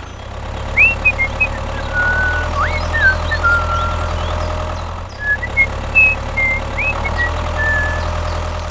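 Small engine idling steadily, with birds chirping over it.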